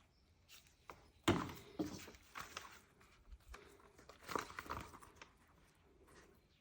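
A few light knocks and rustles of food preparation, loudest about a second in and again about four seconds in.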